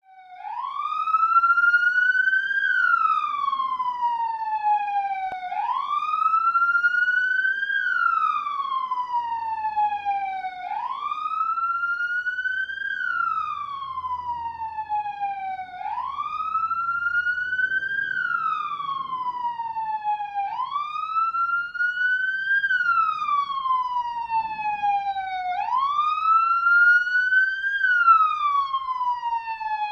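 Police siren wailing: a tone that sweeps quickly up and then slides slowly back down, about once every five seconds, six times over.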